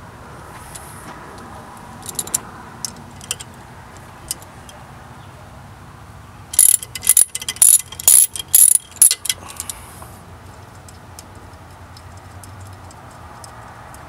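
Hand ratchet wrench clicking as a bolt is turned and tightened. A few single clicks come first, then a loud quick run of clicks for about three seconds near the middle.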